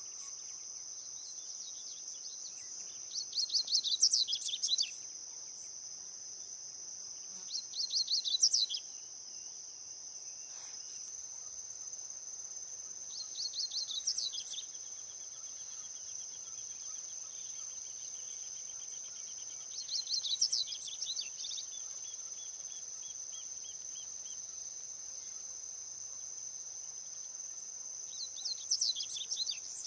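A wild double-collared seedeater (coleiro) sings five short, quick warbled phrases spaced several seconds apart. A steady high-pitched insect drone runs underneath.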